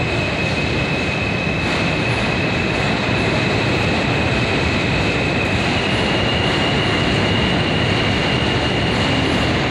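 New York City subway train moving through the elevated terminal: a steady rumble of the cars with a thin, high wheel squeal over it that steps up a little in pitch about six seconds in.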